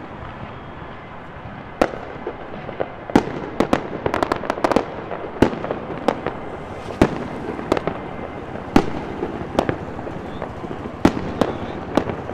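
Fireworks and firecrackers going off: irregular sharp bangs over a steady background of crowd and street noise, with a quick cluster of cracks about four seconds in.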